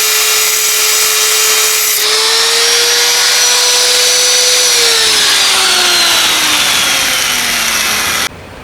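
Handheld power tool running at high speed with a steady high whine, working the metal of a fire stand. From about five seconds in, the motor is released and the whine falls steadily as it spins down, then the sound cuts off abruptly near the end.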